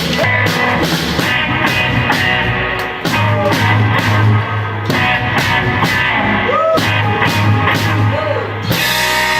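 Live rockabilly band playing an instrumental passage with drum kit and guitar on a steady beat. Near the end the drumming stops and a final chord and cymbal wash ring out as the song closes.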